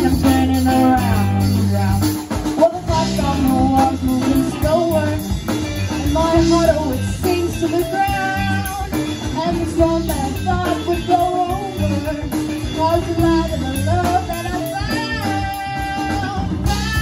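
Live rock band playing: a young woman singing lead over electric guitars, keyboard and drum kit.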